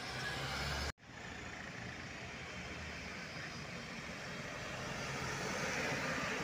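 Road traffic on a wet street. A car passes close, then the sound cuts out briefly about a second in. A Mercedes-Benz Sprinter minibus then drives up and passes close by, its engine and the hiss of its tyres on the wet road growing louder toward the end.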